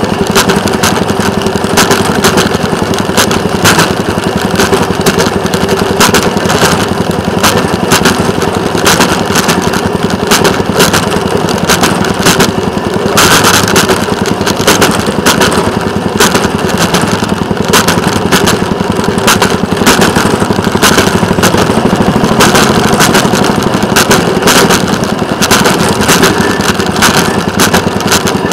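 Small engine of the rail vehicle WCRG 1945 running steadily as it travels along the track. The sound is loud and unbroken throughout, with no change in pace.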